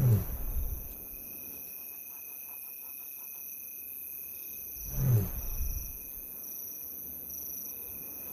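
A lioness calling for her cubs: two short, low calls about five seconds apart. Crickets chirp steadily behind.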